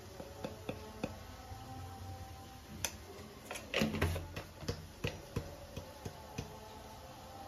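Light, scattered clicks and taps of kitchen utensils against a bowl as garam masala powder is tipped in, with a louder cluster of knocks about four seconds in.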